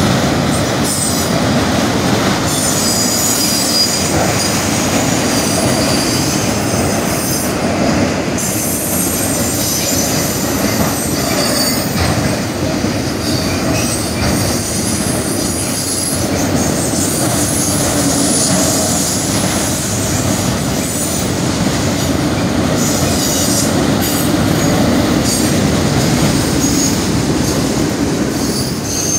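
Freight train of autorack cars rolling past at a grade crossing: a steady rumble and rattle of steel wheels on rail, with high-pitched wheel squeal coming and going above it.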